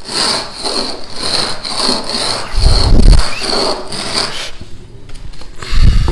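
A gypsum decorative-stone tile being rubbed back and forth on a coarse abrasive surface to grind it down to fit: a gritty scraping at about two strokes a second. There is a dull thump about three seconds in and another near the end.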